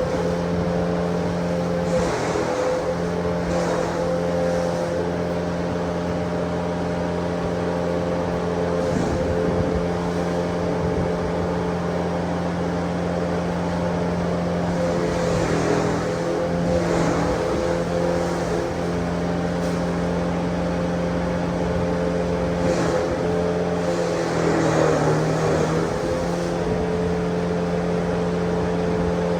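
Engine-driven grass grinding machine running at a steady speed, with short noisy swells now and then.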